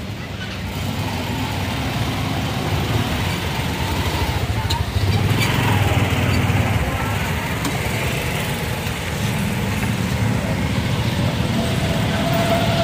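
Steady low engine rumble of a motor vehicle running, with general street noise and a few faint clicks.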